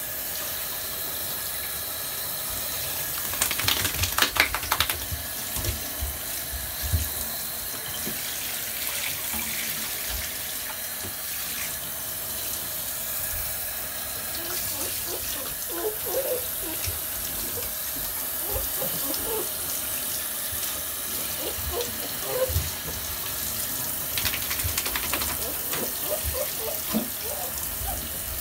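Handheld shower head spraying water onto puppies in a bathtub, a steady hiss throughout. A cluster of louder knocks comes about four seconds in, and another near the end.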